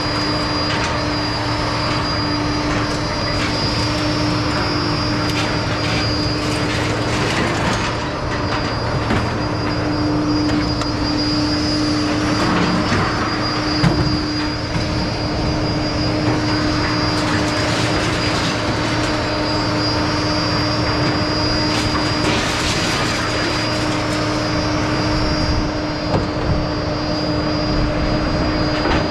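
Steady mechanical running noise with a constant hum and a high whine, and a few light knocks.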